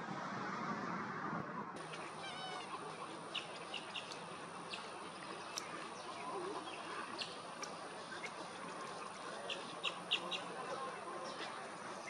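Great egret nesting colony calling: many short, scattered calls, some close together in quick runs, over a steady noisy bed with a thin high steady whine. The first two seconds are only a steady rushing noise.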